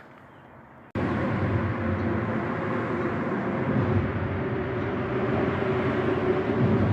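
Steady vehicle noise, a continuous rumble and hiss with a faint hum, cutting in abruptly about a second in.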